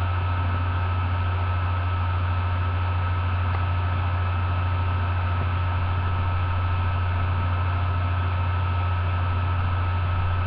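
Steady low hum with an even hiss and a faint high whine, unchanging throughout, typical of the background noise of a built-in laptop or webcam microphone.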